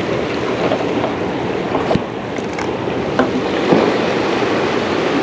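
Steady rush of turbulent tailwater churning below a dam, with a few short clicks.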